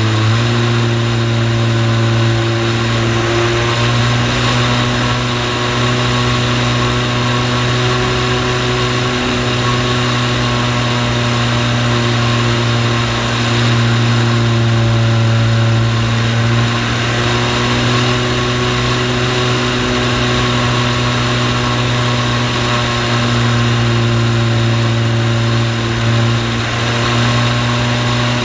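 Radio-controlled T-28 model plane's motor and propeller running in flight, heard from a camera mounted on the plane: a loud, steady drone that shifts slightly in pitch now and then.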